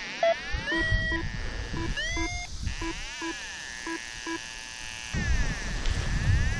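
Paragliding flight instrument (variometer) beeping steadily at one low pitch, about three short beeps a second, with two rising electronic chirps about one and two seconds in. From about five seconds in, wind rumble on the microphone comes up under the beeps.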